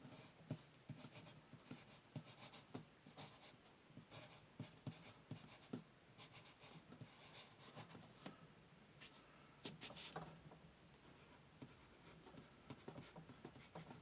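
Faint pen strokes on paper while a diagram is drawn and labelled: short scratching strokes and light taps.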